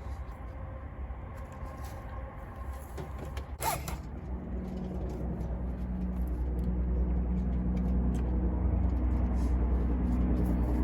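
Engine running with a steady low hum that grows louder from about four seconds in, with a short knock just before it swells.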